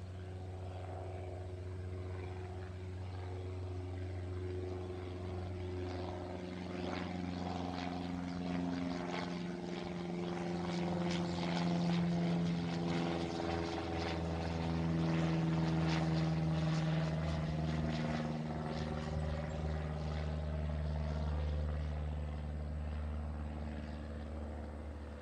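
Cessna 172 Skyhawk's piston engine and propeller droning in a flyover, growing louder to a peak around the middle and then fading away, the pitch sagging slightly as it passes.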